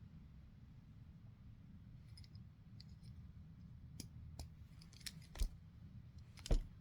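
A few sharp, separate clicks of a fingernail and small hands-on handling of a 1:64 scale diecast car as its opening parts are pried at, over a faint low hum.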